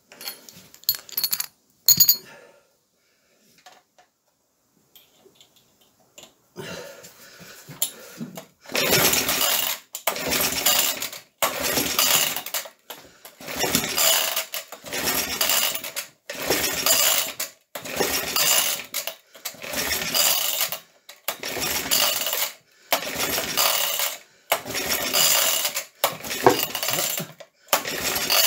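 Vintage Suffolk small engine being cranked over and over on its recoil pull-start, over a dozen pulls about one every second and a half, starting about eight seconds in, with a few clicks near the start. It turns over without catching: the owner blames a lack of spark, from the plug or from wetness left by its cleaning bath.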